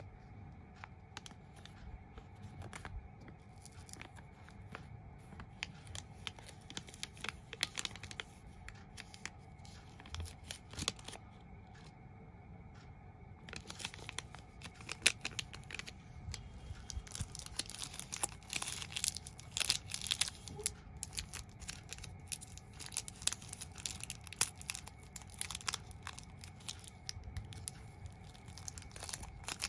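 Foil and plastic candy wrappers crinkling and tearing under the fingers, with a chocolate bar's wrapper torn open near the end. The crackling is sparse at first and grows much busier in the second half.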